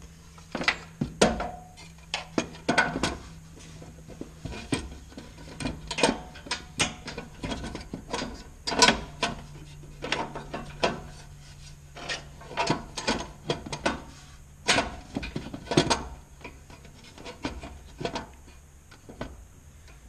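Small metal mounting brackets clinking, tapping and scraping against a car's front sheet metal as they are held up and shifted into place: irregular sharp clicks and knocks.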